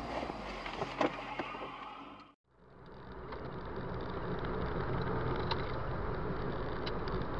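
Car driving, steady engine and road noise. The sound cuts out briefly about two and a half seconds in, then the same kind of steady rumble resumes.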